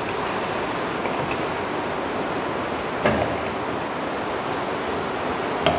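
Boiled dumplings, green bananas and their cooking water tipped from a small pot into a larger one, over a steady rushing, water-like noise. Two short knocks, about three seconds in and just before the end.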